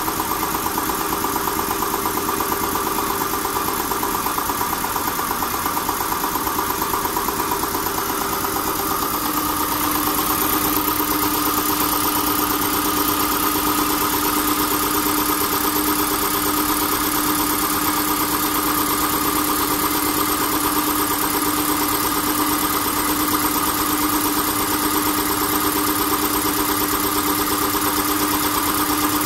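An Earth Fuji 10 hp piston air compressor, with an electric motor belt-driving two twin-cylinder pumps, running steadily under load as it pumps up its tank. About nine seconds in, its hum drops slightly in pitch and gets a little louder.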